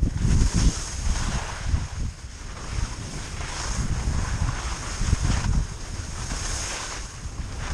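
Wind buffeting a GoPro's microphone during a ski run, with skis hissing over snow in swells every second or two.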